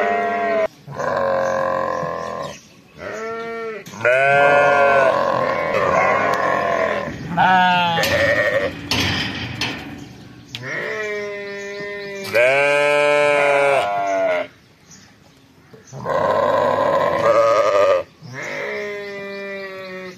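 Lambs bleating again and again, one call after another and sometimes overlapping, with a brief lull around fifteen seconds in.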